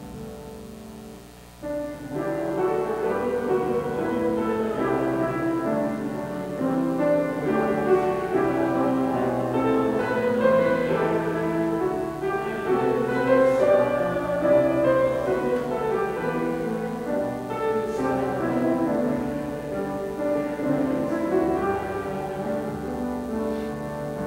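Instrumental music with held notes, soft at first, then suddenly fuller and louder a little under two seconds in.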